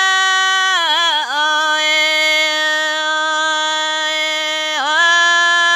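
Red Dao (Iu Mien) folk singing: a single voice holding long, drawn-out notes. The pitch dips briefly about a second in and again near the end.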